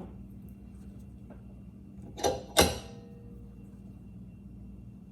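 Two short clattering sounds about a third of a second apart, a little over two seconds in, with a faint ring after the second: the mower's bent metal bail handle being handled as it is taken off to be straightened.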